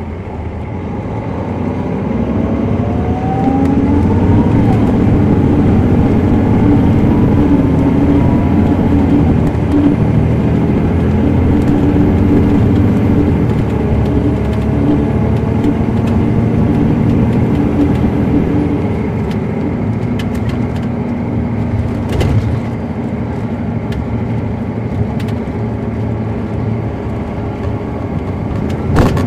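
The Caterpillar C13 ACERT diesel of a 2007 MCI D4500CL coach, heard from inside the cabin as the bus pulls hard under acceleration. A drivetrain whine climbs and breaks off a few times through the Allison automatic's shifts, and the engine eases back somewhat about twenty seconds in. A couple of sharp knocks come through, one near the end.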